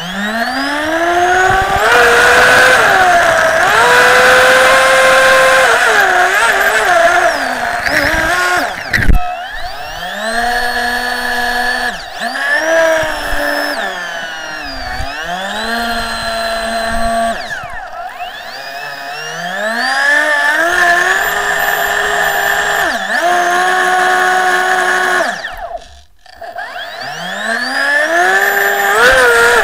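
Electric motor and propeller drive of a radio-controlled hydroplane boat, heard from on board. A high whine climbs, holds and drops in pitch again and again as the throttle is opened and eased, over the rush of water and spray. About 26 seconds in it nearly cuts out, then climbs again.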